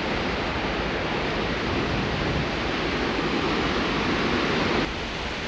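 Steady rushing water of the man-made waterfall on the Snake River, a dense even roar; the level drops suddenly near the end.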